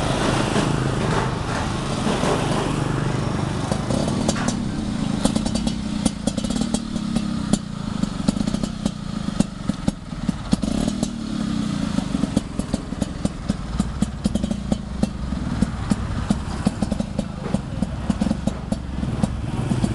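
Vintage Vespa VBC Super's single-cylinder two-stroke engine running at a steady idle, with many sharp, irregular pops over the running from about five seconds in.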